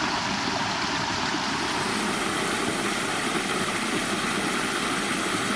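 Small creek waterfall rushing steadily, an even wash of falling water.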